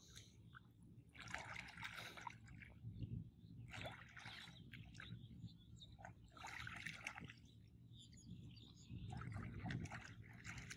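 Faint sloshing and trickling of shallow muddy water stirred by a man wading and working his hands under the surface, coming and going every couple of seconds.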